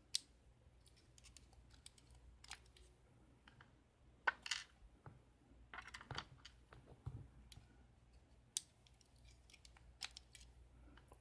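Faint, scattered metal clicks and taps of small lock parts being handled as a Schlage KIK pin-tumbler lock cylinder is taken apart, with a couple of sharper snaps about four and eight and a half seconds in.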